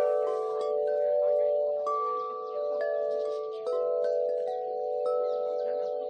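Many metal wind chimes ringing together, their mid-pitched tones overlapping and ringing on, with fresh strikes every second or so.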